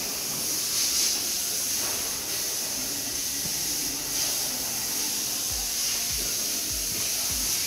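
A steady hiss. About five and a half seconds in, background music with a regular low beat, roughly one thump every 0.6 seconds, comes in under it.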